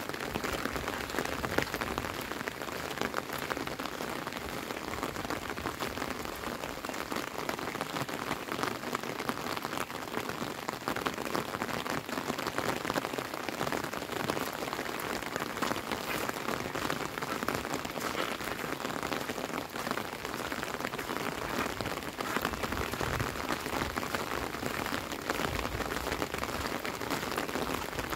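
Steady rain falling, a dense, even spread of countless small drop hits.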